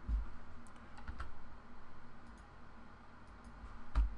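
Scattered light clicks from a computer mouse and keyboard, with a duller, heavier knock near the end.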